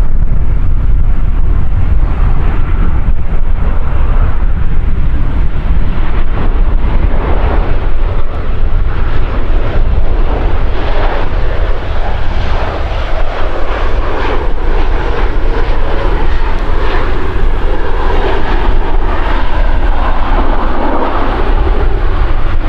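Boeing 737 jet engines during a landing, the engine noise building from about halfway through, under heavy wind buffeting the microphone with a steady low rumble.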